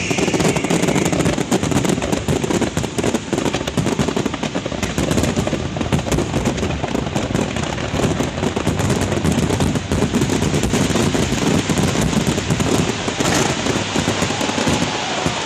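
Aerial fireworks going off in a dense barrage: a rapid, unbroken run of shell bursts and crackling reports, many each second.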